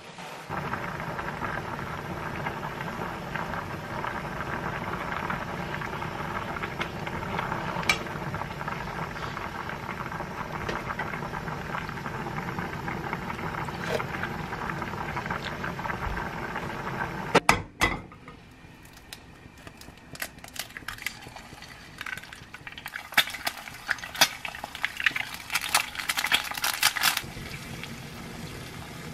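A pot of doenjang jjigae (soybean-paste stew) boiling hard, a steady bubbling. About 17 seconds in there is a sharp clatter, and then the bubbling stops. Quieter light clicks and scrapes of a silicone spatula in a nonstick frying pan of eggs follow.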